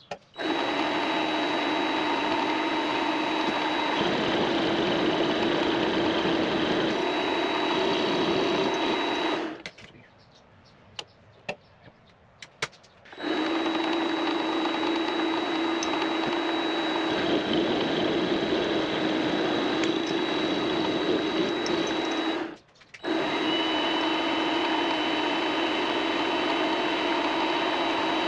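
Vevor MX400 mini lathe running with a steady motor whine while turning a part down in diameter ahead of threading with a die. It cuts out for about three seconds near the middle and again for a moment later, then runs on.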